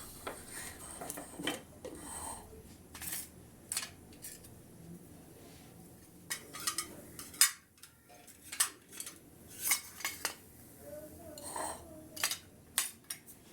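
Kitchen utensils and dishes clinking and knocking in an irregular series of sharp taps, the loudest a little past the middle.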